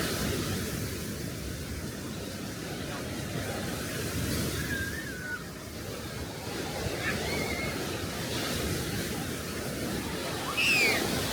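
Sea waves washing onto the beach, a steady hiss that swells every few seconds, with faint distant voices and a brief high, falling cry near the end.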